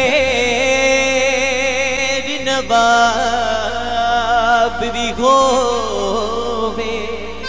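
Live Saraiki folk music: a male singer holds long, wavering notes over a steady harmonium drone.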